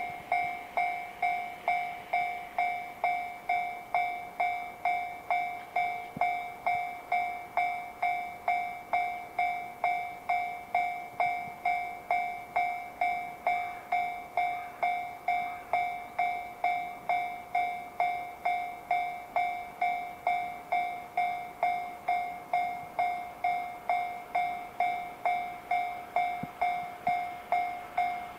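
Japanese level-crossing alarm bell ringing steadily at about two dings a second, an electronic bell with a clear two-pitched tone. It means the crossing is closed for an approaching train.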